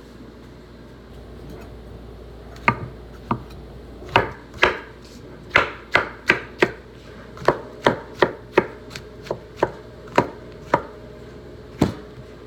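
Kitchen knife chopping vegetables on a cutting board: sharp, irregular chops that start about two and a half seconds in and come one or two a second.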